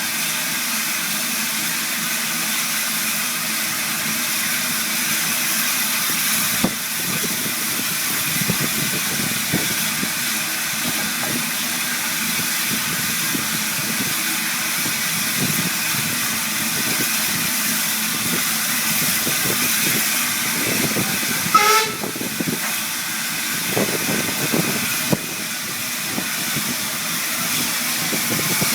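Steam locomotive hissing steadily. A short rising tone sounds briefly about three quarters of the way through.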